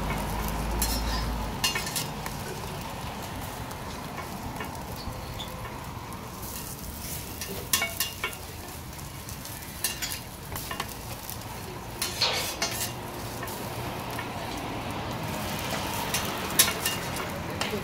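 Egg-wrapped gimbap rolls frying on a flat steel griddle with a steady sizzle, broken now and then by sharp clinks and scrapes of a metal slotted spatula against the griddle; the loudest clink comes near the end.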